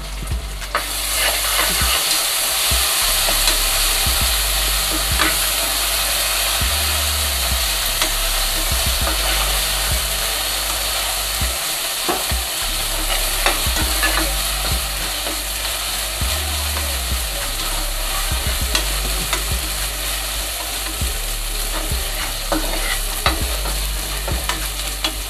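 Sliced onions sizzling as they fry in an aluminium pressure cooker, stirred with a steel ladle that scrapes and clicks against the pan now and then.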